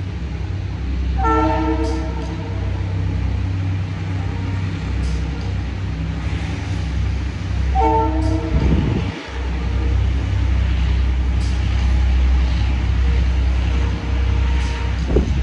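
A horn sounds twice, briefly, as a multi-tone blast, over a steady low rumble.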